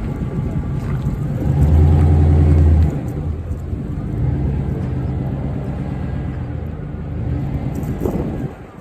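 A car engine running close by, with a louder low surge lasting about a second, starting about a second and a half in, before it dies down near the end.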